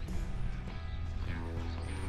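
Background music with held, steady tones.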